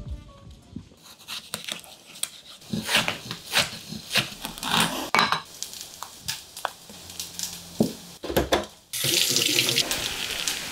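Kitchen prep sounds: scattered light clicks and knocks of a knife and avocado on a wooden chopping board. About nine seconds in, a kitchen tap starts running with a steady rush.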